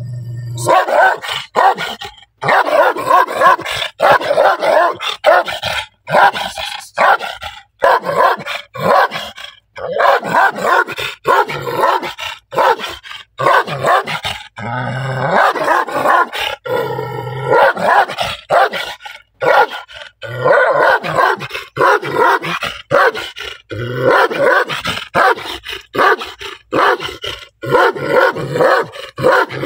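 A large black dog barking loudly and angrily in quick runs of barks with short pauses between them, an aggressive threat display as it lunges at its tether.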